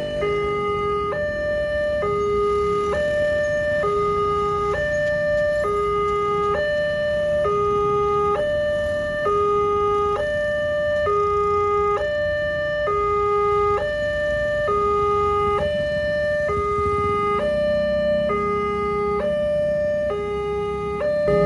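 Railway level-crossing warning alarm sounding while the barrier is down, warning that a train is coming. The electronic two-note signal steps steadily between a high and a low note, each held a little under a second.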